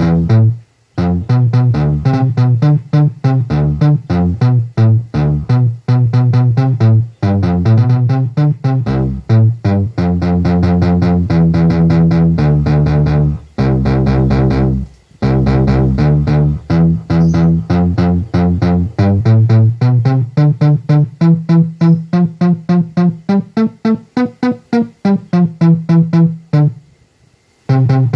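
Bass-heavy electronic test music with a driving beat and repeated short keyboard notes, with a few brief pauses where the music cuts out.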